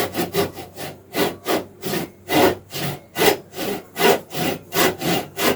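Hand saw cutting into a wooden chair piece, back-and-forth strokes at about three a second as a cut is started.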